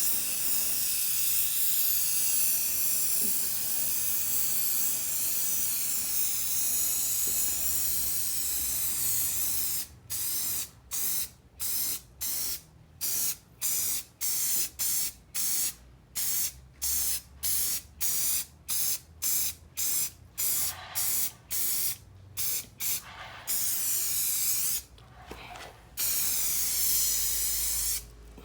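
Rust-Oleum aerosol spray paint can hissing: one long steady spray for about the first ten seconds, then a quick run of short spurts, about one or two a second, then two longer sprays near the end.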